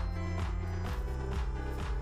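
Background electronic dance music with a steady beat and sustained bass notes.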